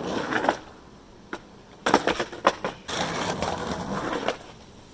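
Skateboard wheels rolling on pavement, then a quick cluster of sharp wooden clacks from the board about two seconds in, followed by more rolling that stops about four seconds in.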